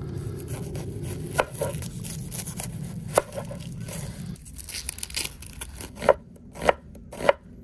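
A knife cutting an onion on a wooden cutting board, with five sharp knocks of the blade against the board. The last three come about half a second apart near the end. A low steady rumble underneath stops about four seconds in.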